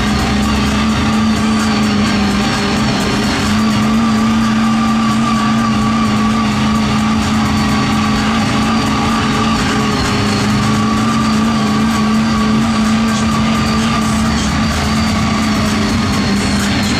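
Off-road truck engine running at high, steady revs, holding one pitch without letting off.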